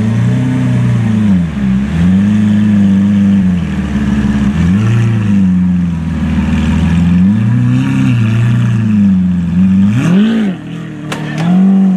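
Lamborghini Aventador's V12 engine being revved repeatedly while stationary, its pitch climbing and dropping several times, with a quick sharp blip about ten seconds in followed by a couple of short cracks.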